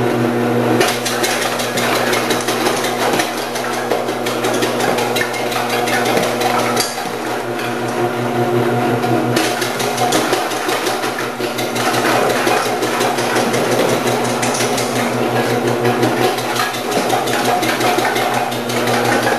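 Electric commercial vegetable cutter running with a steady motor hum, while carrots pushed down its side chute are sliced by an 8 mm slicing disc with a rapid, continuous clatter. The texture of the cutting changes a few times as new pieces are fed in.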